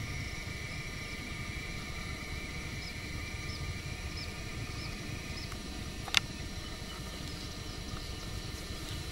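Steady low rumble of a vehicle on the move, with a faint high whine that fades out about five and a half seconds in. A single sharp click about six seconds in.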